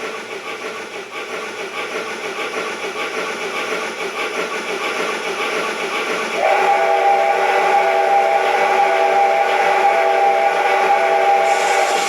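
Steam locomotive sound from a KATO 22-101 model-railway sound box, using the SL Banetsu Monogatari's C57 sound set: steady rhythmic chuffing, then about six seconds in a long steam whistle blast that stops near the end.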